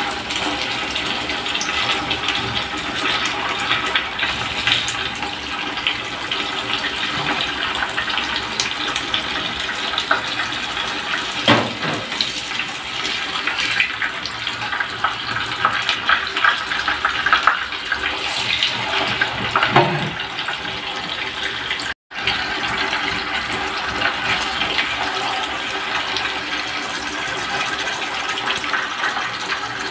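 Tofu deep-frying in hot oil in an electric nonstick pan: steady sizzling and bubbling, with a couple of knocks from the tongs turning the pieces. The sound cuts out for an instant about two-thirds of the way through.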